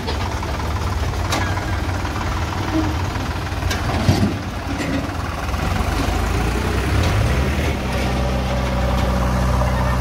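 Sonalika tractor's diesel engine running at low revs, with a sharp knock about four seconds in. Near the end the engine settles into a steady idle hum.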